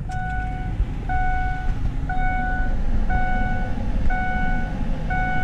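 Ford Explorer's dashboard warning chime beeping about once a second, six times, each a steady electronic tone of about half a second. A low rumble runs underneath.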